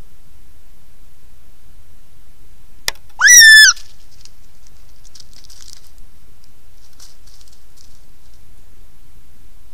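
Gray fox giving one short, loud, high-pitched call with a wavering pitch about three seconds in, just after a sharp click.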